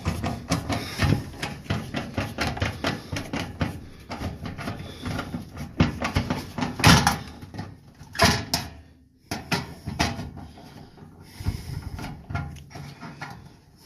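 Fast, uneven knocking and rattling at an old Tempstar 80% gas furnace, with a few louder clunks about seven and eight seconds in.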